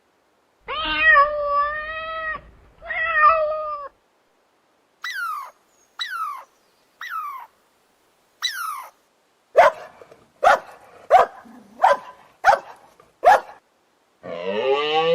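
Cats meowing: two long wavering meows, then four short mews that fall sharply in pitch, then a quick run of seven short sharp calls.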